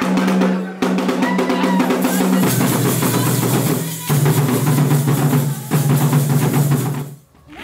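Drum-heavy music: a fast, steady drumbeat over sustained low notes that change pitch every second or two, stopping shortly before the end.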